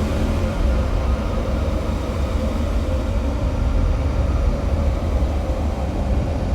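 Dense, steady low rumble of noise that belongs to an album track, with no beat or melody standing out.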